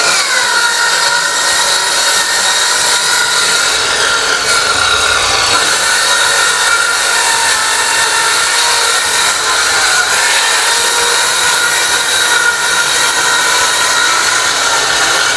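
Handheld electric circular saw ripping lengthwise along a long wooden plank, running steadily under load with a continuous high whine. Its pitch drops just at the start as the blade bites into the wood.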